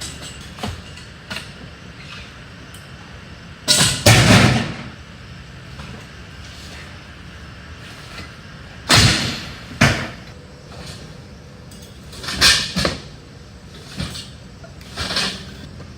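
Debris and junk being dropped and thrown into a truck, with a handful of separate loud crashes and bangs a few seconds apart over a steady background.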